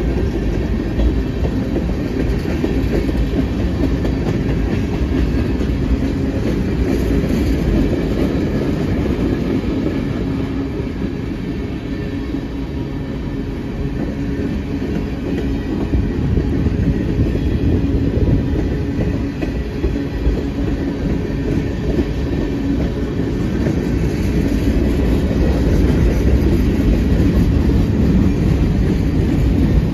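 Freight train cars, mostly tank cars, rolling past close by: steel wheels clicking over the rail joints over a steady rumble, a little louder near the end.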